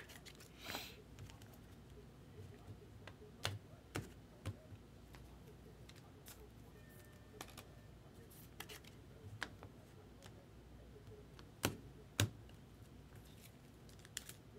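Light, scattered clicks and taps of trading cards being handled and sorted by hand, with a brief rustling swish about a second in and a couple of sharper taps near the end.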